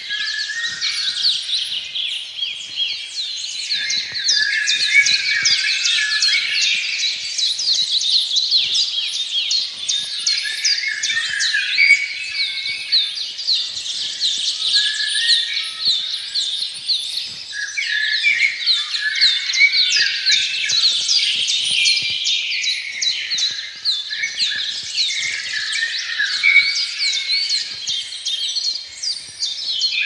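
A dense chorus of many songbirds singing and chirping at once: rapid, overlapping high chirps and trills with no break.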